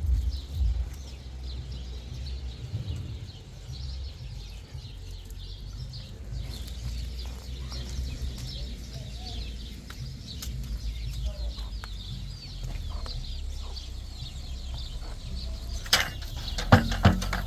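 Birds chirping over a steady low rumble, with a run of sharp knocks near the end.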